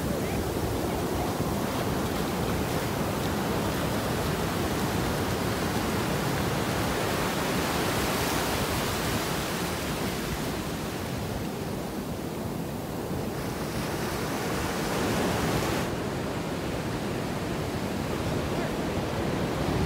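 Ocean surf washing onto a beach, a steady rush that swells and ebbs as the waves come in, with some wind on the microphone.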